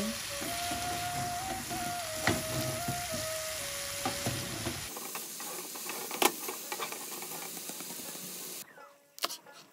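Eggplant pieces frying in a spice paste in a nonstick pan, sizzling steadily while a wooden spatula stirs them. The sizzle drops away near the end, and a few sharp knocks follow.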